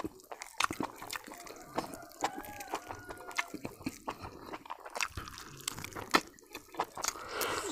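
Close-miked eating sounds: wet chewing and lip-smacking with many small clicks, as duck meat from a biryani is chewed and pulled off the bone by hand.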